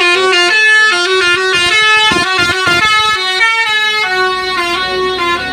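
Basuri telolet horn on a bus playing a fast, loud tune of several tones at once, the notes stepping up and down. It cuts off abruptly at the end.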